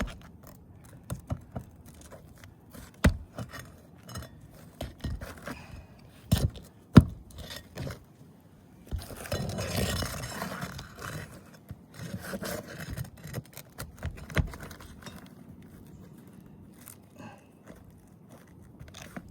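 Roofing nails being worked out from under shingles by hand with a metal tool: scattered sharp metal clicks and taps, with a longer scraping stretch about halfway through.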